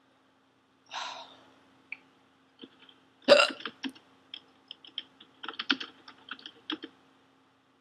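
A woman hiccuping twice, about a second in and again a little after three seconds, the second hiccup the louder. A run of quick light clicks like typing follows for about three seconds.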